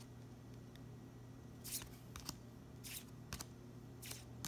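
Dragon Ball Super trading cards being slid one by one from the front to the back of a small stack in hand, giving several short swishes that start about a second and a half in. A faint steady low hum runs underneath.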